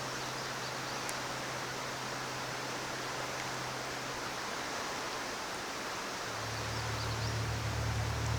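Steady rush of a mountain trout stream's flowing water. About six seconds in, a low steady hum comes in underneath and grows louder.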